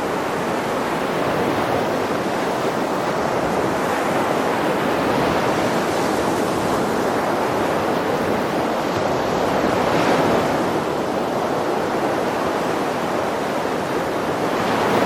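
Sea surf: a steady rush of waves breaking and washing, swelling a little about two-thirds of the way through and again near the end.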